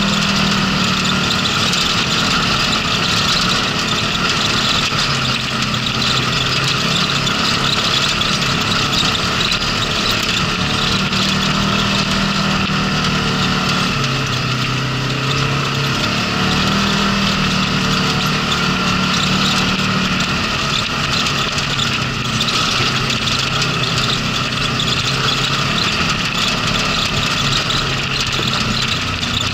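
Polaris RZR side-by-side's engine running under way over gravel, its pitch rising and falling every few seconds as the throttle changes, with steady tyre and road noise.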